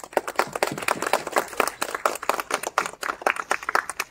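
A small group of people clapping in applause, many hand claps overlapping in a steady patter.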